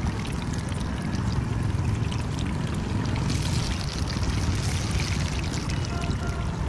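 Hot oil sizzling in a wok as battered tomato pieces deep-fry, a steady hiss that thickens about three seconds in, over a constant low rumble.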